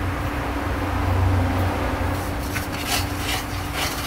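A metal spatula scrapes and stirs a simmering sauce in a steel wok, in repeated short strokes starting about two seconds in, over a steady low hum.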